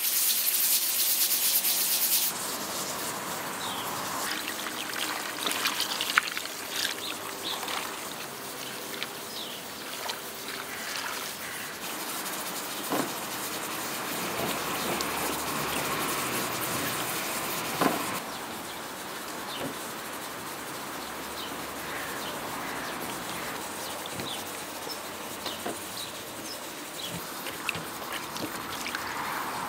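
Aluminium pressure cooker's weighted valve hissing out steam, cut off about two seconds in. Then hands handling fresh vegetables in metal bowls: soft rustling with a few small knocks.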